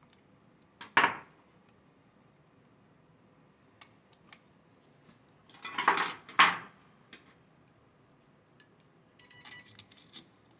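Small metal tools and chainsaw parts clinking and clattering as they are handled on a workbench. There is a sharp clank about a second in, a louder run of clanks around the middle, and lighter ringing clicks near the end.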